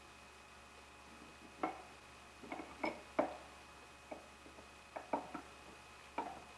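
Irregular sharp metal clicks and light knocks, about nine in all, as the Dodge NV4500 input shaft and its tapered roller bearing are wiggled and turned by hand to seat in the transmission case while its gear works to engage the fourth-speed clutch gear.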